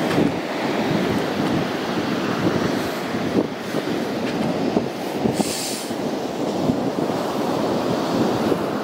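Strong wind gusting across the camera microphone in a beach sandstorm: a low, unsteady rumble that rises and falls with the gusts, with a brief higher hiss about five seconds in.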